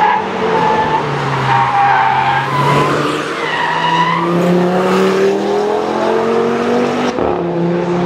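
Audi RS 3 Sportback's turbocharged 2.5-litre five-cylinder engine pulling hard uphill, its pitch rising and falling through the revs, with a gear change about seven seconds in. A brief high tyre squeal about three and a half seconds in.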